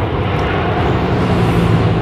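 Airbus A330 airliner's twin jet engines running on the runway: a loud, steady rumble with a broad roar above it, rising a little about halfway through.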